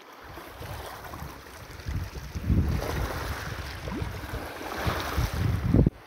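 Small sea waves lapping and sloshing in shallow water at the shore. Wind buffets the phone's microphone in low rumbling gusts, loudest about two and a half seconds in and again just before the end.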